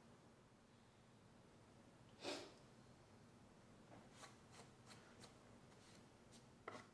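Near silence: quiet shop room tone with one soft brushing sound about two seconds in and a few faint light ticks toward the end.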